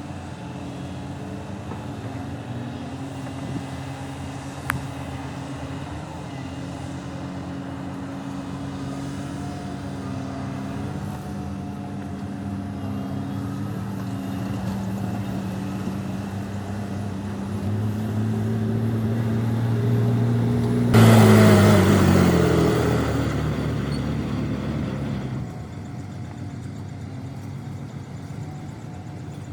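Heavy diesel engines of an excavator and dump trucks running, the engine note building under load. About two-thirds through comes a sudden loud rushing burst, after which the engine pitch falls and the sound eases back.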